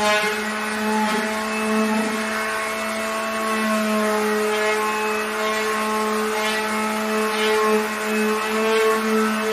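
Fisch electric orbital sander running steadily with its pad on plywood: a constant motor hum over a sanding hiss.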